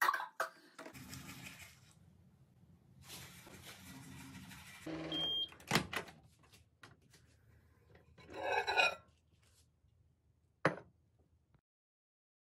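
Microwave oven running with a low hum, then a short beep about five seconds in and a loud click as its door is opened. A brief rustling burst and a sharp click follow later.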